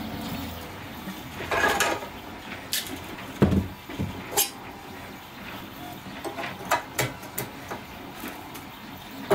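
Handling noises: scattered clicks, knocks and clinks of hard plastic parts, with a rustling stretch about a second and a half in and a heavier thump about three and a half seconds in, as a filament spool is handled on the spool holder of a small 3D printer.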